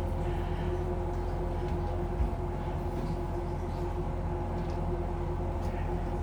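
Steady low rumble with a constant hum underneath.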